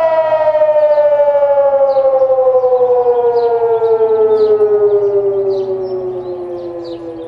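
Hörmann ECN 600 electronic civil-defence siren sounding its test signal: one loud tone with many overtones, sliding slowly and steadily lower in pitch and fading over the last couple of seconds.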